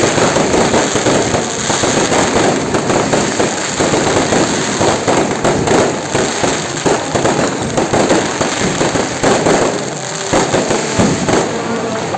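Aerial fireworks bursting overhead in a dense, unbroken crackle of many sharp bangs close together.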